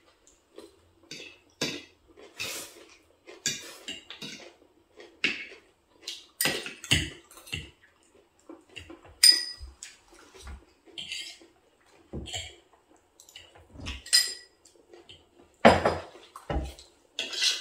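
Cutlery clinking and scraping against plates while eating: irregular short clicks, one or two a second, with a louder clatter near the end.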